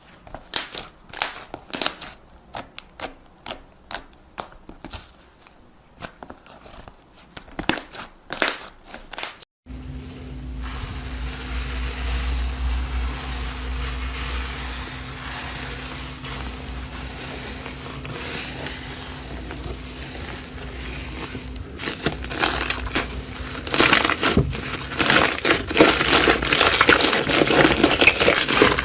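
Close-miked ASMR crunching and crackling as a crunchy slime or soap-type material is pressed and crushed. For the first nine seconds or so it comes as separate sharp crackles. After an abrupt change there is a steady hiss with a low hum for about twelve seconds, and then dense, louder crunching sets in near the end.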